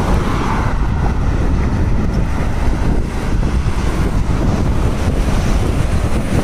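Steady wind buffeting the microphone of a camera carried on a moving bicycle, a loud noise heaviest in the low end.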